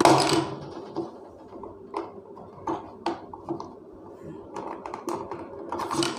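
Screwdriver tip prying and scraping at the locking notches of a hard plastic pull-cord chopper lid, to free its snap locks: a run of sharp plastic clicks and scrapes, the loudest right at the start.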